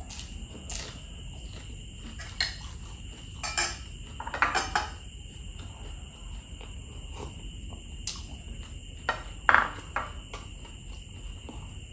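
Close-up eating sounds: chewing, a sip from a small glass bowl, and scattered light clinks of glass and dishes.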